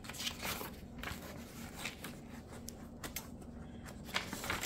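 Paper pages of a printed booklet rustling and crinkling as they are handled and turned, in several short bursts.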